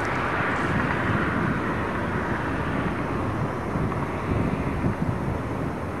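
Distant freight train running along the far riverbank: a steady rolling roar and rumble of wheels on rail.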